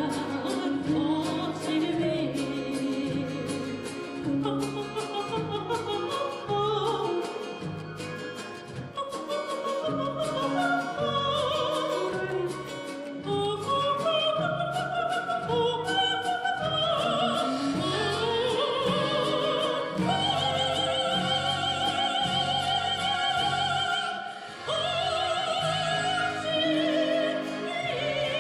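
Uyghur folk song, sung with vibrato over an accompaniment that has a steady pulsing bass. From a bit past halfway the voice climbs and holds long, wavering high notes.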